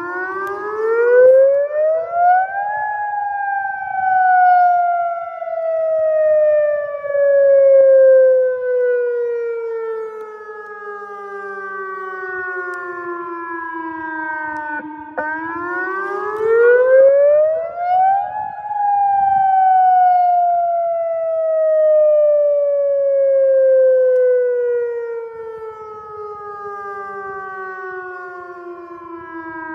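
Outdoor tornado warning siren sounding a wail: its tone rises quickly over a few seconds, then slides slowly down over about twelve seconds, twice over. The loudness swells and fades every few seconds.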